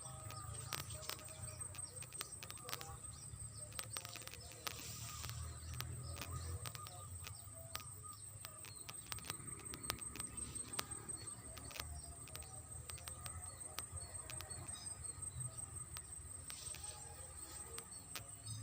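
Outdoor ambience: a steady, high-pitched insect trill, with scattered clicks and faint bird calls over a low rumble.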